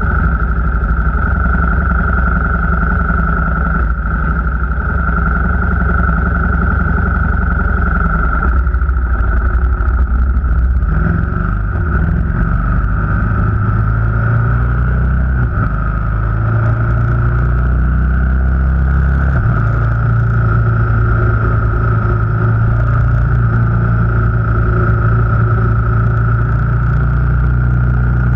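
Car engine and road noise while driving, with a steady high whine over it. The engine note shifts to a new pitch several times.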